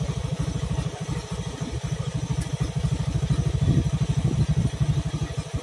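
A small boat engine running at idle, a steady rapid low chugging.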